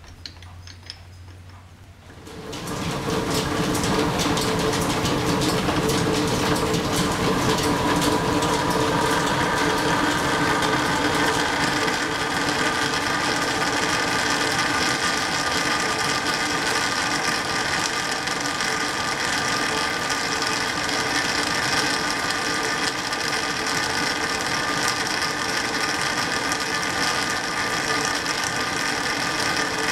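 Antique flat-belt lathe, driven from a line shaft, started up about two seconds in and then running steadily, its gears meshing with a constant whir and fine clatter.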